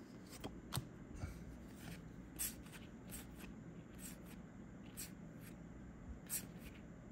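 Star Wars Unlimited trading cards being flicked and slid through the hands one after another, with faint irregular flicks about once a second.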